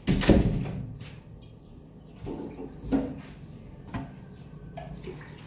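A loud thump, then a few softer knocks and a sharp click: household handling noise such as a door or objects being moved and set down.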